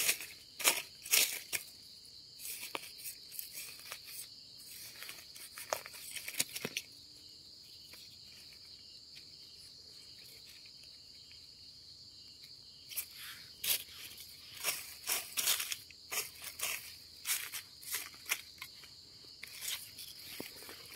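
Dry leaf litter and soil crackling and rustling as a hand digs out termite mushrooms, in two spells with a quieter pause in the middle. A steady high insect trill runs underneath.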